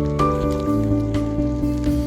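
Background music: sustained chords that change every half second or so, with light clicking percussion.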